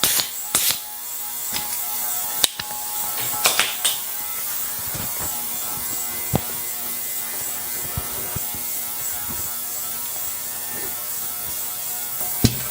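Scattered clicks and knocks of bicycle parts being handled during wheel work, over a steady hiss.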